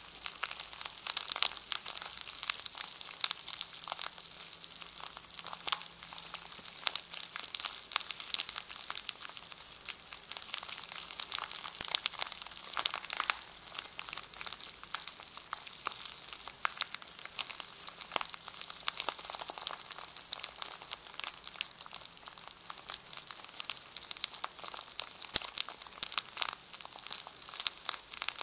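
Crinkly plastic packaging around a brush being handled, a dense, continuous run of small crackles and rustles.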